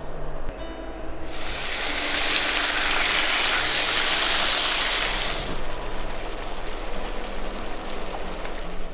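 Thin slices of marinated beef sizzling in hot oil in a nonstick pan. A strong hiss starts about a second in and eases to a softer frying sizzle after about five seconds.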